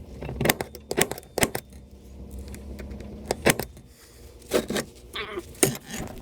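Irregular metallic clinks and knocks, about eight over a few seconds, some ringing briefly, from tools and sheet metal being handled while a new sheet-metal part is made. A low steady hum sits under them.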